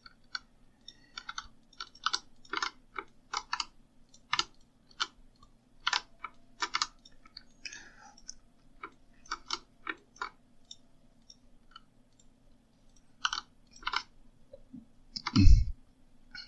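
Computer keyboard keys and mouse buttons clicking irregularly, dozens of short clicks at an uneven pace. About a second before the end there is a brief low thud, the loudest sound.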